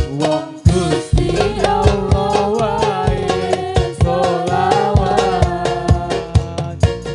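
Hadroh ensemble performing a sholawat: a voice sings a long, wavering melody over regular strikes of rebana frame drums and a steady instrumental accompaniment.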